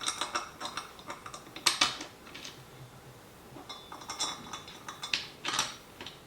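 Metal furniture bolts and an Allen key clinking and clicking as the bolts are handled and turned into the wooden panel, with brief metallic ringing twice.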